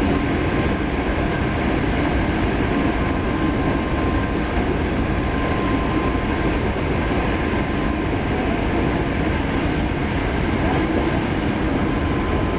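Hankyu Kobe Line electric train running, heard from inside the car: a steady rumble of wheels on the rails with a faint steady whine above it.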